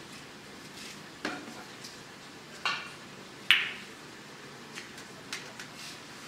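Snooker break-off shot: three sharp clacks of cue and balls over about two seconds, the third the loudest, followed by a few fainter clicks as the reds spread.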